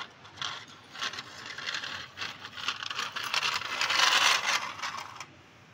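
Plastic toy car pushed by hand over rough concrete, its wheels rolling and scraping in uneven bursts. The scraping is loudest about four seconds in and stops shortly before the end.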